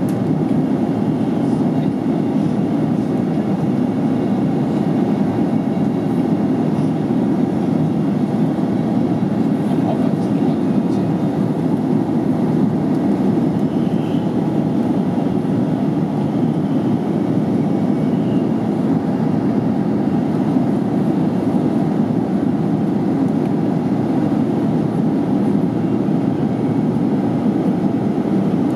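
Airliner cabin noise in flight shortly after takeoff: the jet engines and rushing air make a steady low rumble that does not change.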